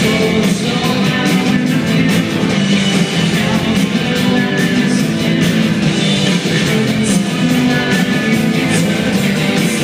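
Rock band playing live: electric guitars, bass and drums, loud and continuous.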